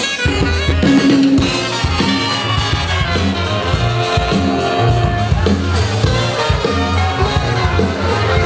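Upbeat music with drums and a pulsing bass line.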